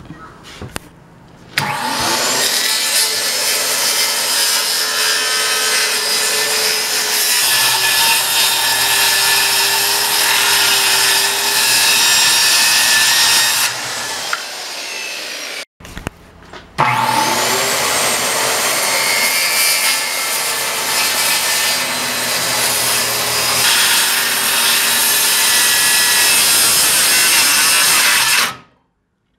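Electric power saw cutting along a pallet board in two long runs of about twelve seconds each. Each run starts with the motor spinning up in a rising whine, and the first winds down briefly before the second begins.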